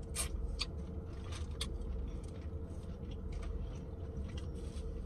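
Mouth sounds of someone eating shellfish by hand: a run of short, sharp smacking and sucking clicks, with some crinkling of a plastic bag. A steady low hum of the car cabin runs underneath.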